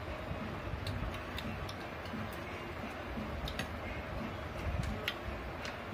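Eating noises: scattered, irregular small clicks and ticks as fried batter balls (punugulu) are eaten by hand from steel plates, over a steady low background hum.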